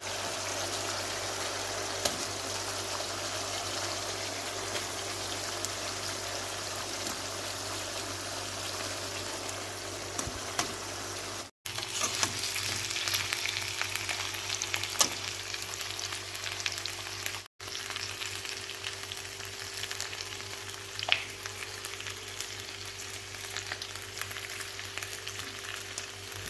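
Food sizzling and crackling as it fries in a pan, with a few sharp clicks and a faint steady hum underneath. The sizzle cuts off abruptly twice, about halfway through and again about two-thirds of the way in, then resumes.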